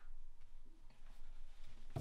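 Quiet room tone with a faint click at the start.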